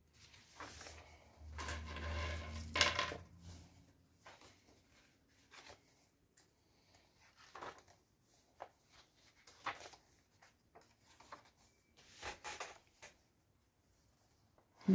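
Paper and card pages of a handmade junk journal being turned and handled: scattered rustles, soft flaps and light taps. The loudest handling comes a second or two in, with a low bump under it.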